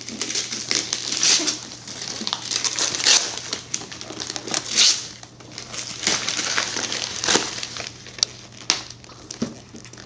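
Gift wrapping paper being torn and crumpled by hand, in irregular rustling, ripping bursts, with a few sharp clicks near the end.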